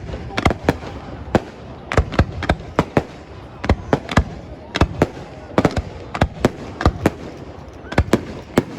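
Aerial fireworks shells bursting in rapid, irregular succession, about two to three sharp bangs a second, as in a closing barrage.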